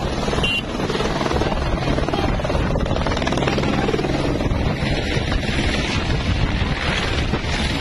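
Helicopter running with a steady low drone and rotor noise.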